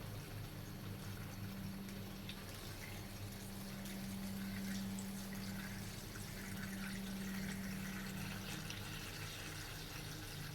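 Engine coolant poured from a gallon jug into a funnel in the cooling system, a faint liquid trickle and gurgle, over a steady low hum.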